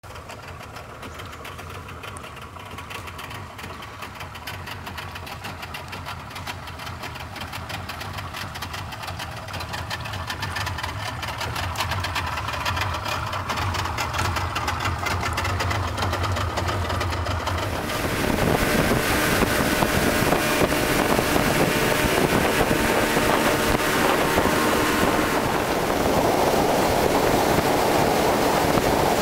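Speedboat engine running steadily at low speed, growing gradually louder. About 18 seconds in, the sound turns into a much louder rush of wind and water over the engine as the boat runs on open sea.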